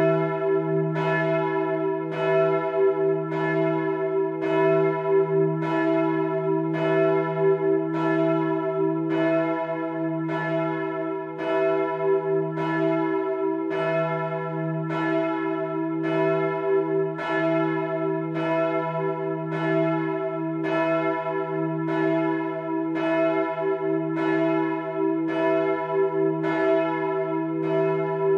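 Large bronze church bell of Bremen Cathedral being swung and rung, its clapper striking in an even rhythm about once a second. A steady low hum and several ringing overtones carry on between the strokes.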